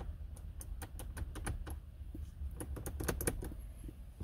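Rapid, irregular clicking of the car's electrical relays as the push-button start is pressed, with a jump pack standing in for a disconnected battery. The clicks come thickest about three seconds in. The engine does not crank, a sign that the pack is not giving enough power without its boost mode.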